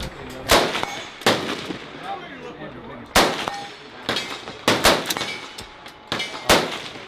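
AR-15 rifle fired in single shots: about eight sharp cracks at irregular spacing, some a second or more apart and a few in quick succession, each with a short ringing echo.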